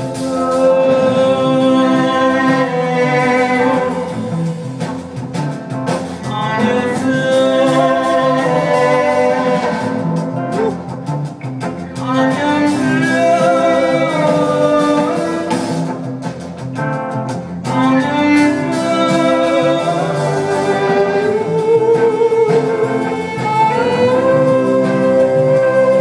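Live band playing an instrumental passage, with a bowed violin carrying a gliding melodic lead over guitar, bass and drums. It is heard from the audience seats of a concert hall.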